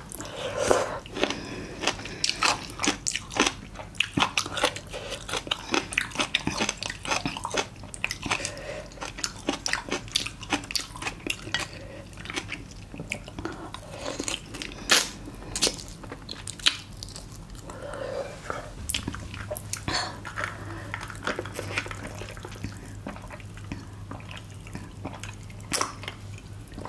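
Close-up eating sounds: chewing, wet mouth sounds and crunching of spicy braised monkfish with bean sprouts, with light clicks of chopsticks and dishes. A low steady hum comes in about two-thirds of the way through.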